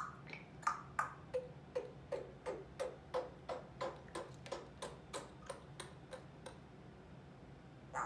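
African grey parrot making a steady run of sharp clicks, about three a second, which stop about six and a half seconds in.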